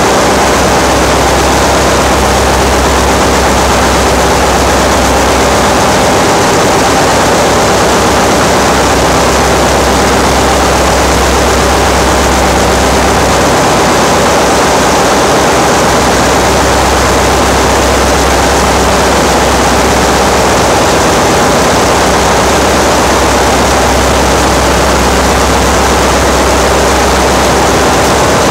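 Loud, steady din of a ship's engine room with its machinery running, over a constant low hum.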